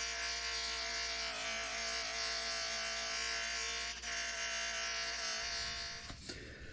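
Small electric power tool running at a steady speed with a continuous whine while cleaning rust off a steel wrench part. The whine dies away near the end.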